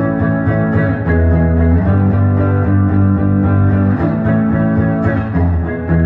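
Four-string semi-hollow electric guitar being plucked, its notes ringing on and overlapping, over sustained low notes that shift every second or two.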